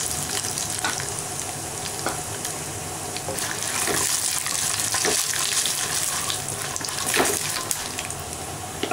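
Raw peanuts frying in hot oil with the mustard seeds, cumin, fennel and dals of a South Indian tempering: a steady sizzle with scattered crackles. A wooden spatula stirs and scrapes through the pan, with a few sharper strokes along the way.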